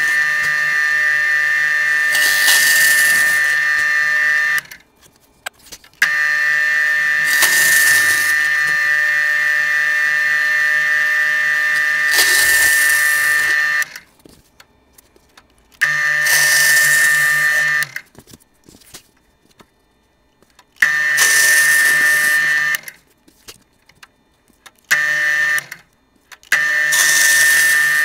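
Drill press running with a steady whine while a 2¾-inch Forstner bit bores into Kaizen foam, with a tearing hiss every few seconds as the bit cuts. The sound breaks off abruptly and starts again several times.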